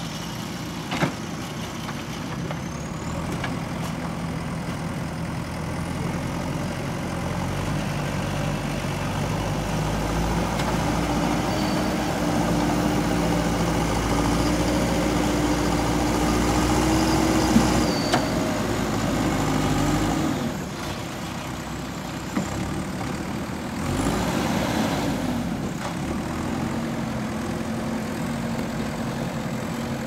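JCB 3DX backhoe loader's diesel engine running as the front bucket pushes soil, working harder and louder through the middle and easing off about two-thirds of the way in. A few sharp knocks come through.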